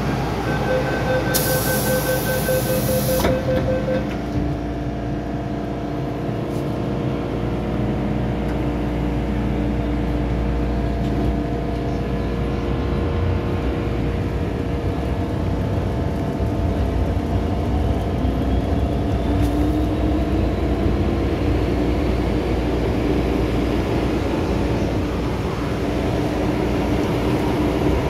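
MTR M-Train electric multiple unit at a platform: a rapid run of door-closing warning beeps and a hiss as the doors shut in the first four seconds. The train then pulls away into the tunnel, with the traction motors whining in a slowly rising pitch under a steady low rumble of the wheels.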